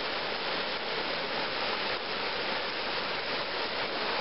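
Swollen, muddy river running fast over rocks in high flow: a steady rush of water.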